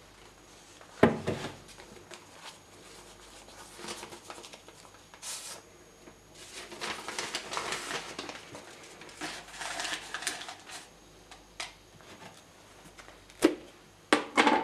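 Objects being handled on a kitchen counter, including a white plastic canister being put down and moved: a sharp knock about a second in, irregular rustling and scraping in the middle, and a few sharp taps near the end.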